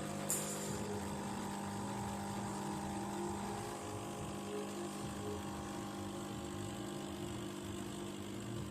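Capsule espresso machine's pump running steadily on the small-cup setting, a constant hum as it pushes water through to brew the cup. A short click near the start.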